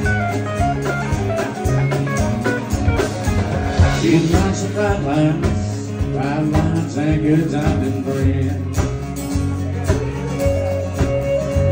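Live country band playing: acoustic and electric guitars over bass and drums, with drum hits keeping a steady beat.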